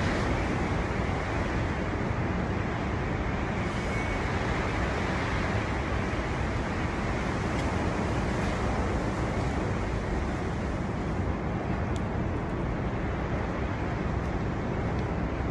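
Strong storm wind blowing steadily, a dense rushing noise heaviest in the low range, with slight swells and a few faint clicks.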